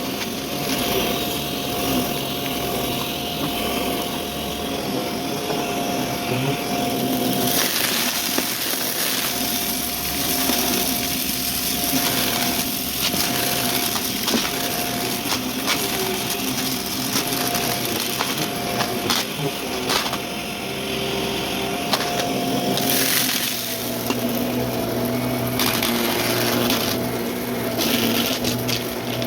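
Vacuum cleaner running with its brushroll spinning, crunching and crackling as it sucks up debris, the crackles coming in irregular spells over a steady motor hum. About two-thirds of the way through, the hum shifts to a different pitch.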